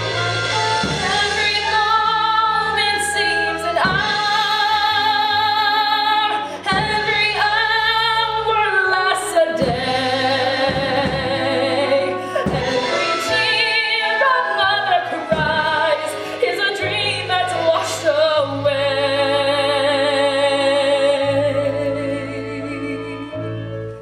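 A woman singing a musical-theatre ballad with vibrato over orchestral accompaniment, holding a long note near the end.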